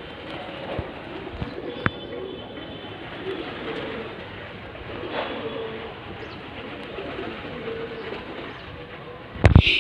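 Pigeons cooing in low repeated calls over a steady background hiss, with a sharp loud knock near the end.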